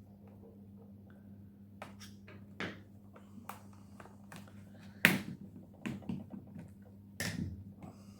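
Small clicks, taps and knocks of a screwdriver and hands working the screws of a laptop's plastic bottom cover. They come irregularly after a quiet first two seconds, with the sharpest knock about five seconds in.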